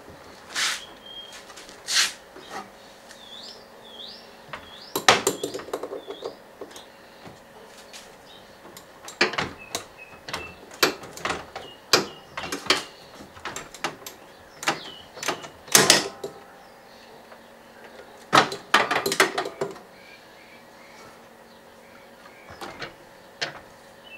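Irregular knocks, clicks and clatter of metal and plastic parts being handled and pulled at inside a stripped washing machine cabinet, coming in bursts. A bird chirps faintly a few times.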